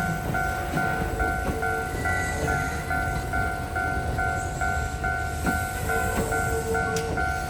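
Kintetsu 12400 series and 3200 series electric train sets running past with a steady rumble, while a level crossing's electronic warning bell rings throughout, about two and a half rings a second.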